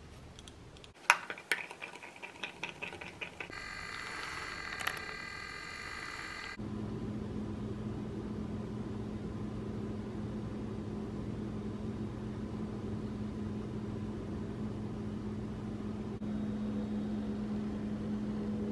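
Light clinks and taps for a couple of seconds, then a small handheld milk frother's motor whining steadily for about three seconds. After that, a steady low mechanical hum takes over.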